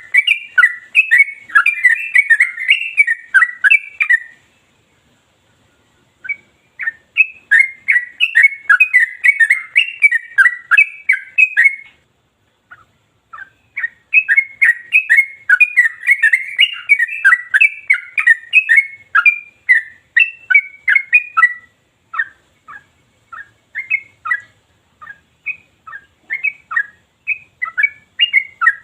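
Yellow-vented bulbul (trucukan) singing long runs of rapid, sharp notes without a break, in three long phrases with short pauses. Over the last several seconds it gives single notes about once a second.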